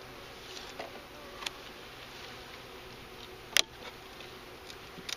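A swarm of honeybees buzzing as a steady hum. There are a few light clicks and one sharp double knock about three and a half seconds in.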